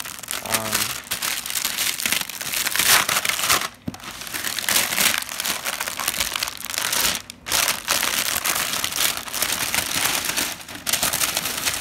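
Plastic wrap being pulled off a cardboard box and crumpled by hand: continuous crinkling, with two brief pauses about four and seven seconds in.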